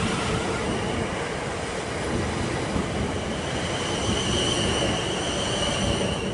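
A South Western Railway electric multiple unit running out past the platform: steady rumble of wheels on rail with a thin high whine that grows a little stronger in the second half.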